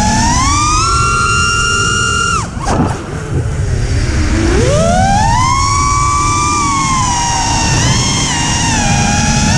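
Ceramiq Skitzo FPV quadcopter's motors whining, heard from the onboard camera, the pitch rising and falling with the throttle. The pitch climbs early on, drops away sharply about two and a half seconds in as the throttle is cut, and rises again about four and a half seconds in as power comes back. Wind rumble runs underneath.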